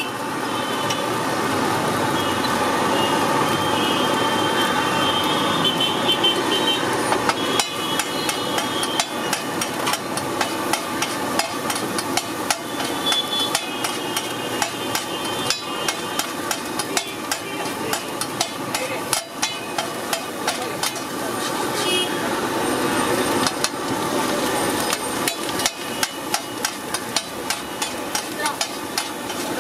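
Metal spatula and ladle clattering and scraping against a large flat metal griddle as the rice is chopped and tossed, with many quick strikes that come thick and fast after the first few seconds.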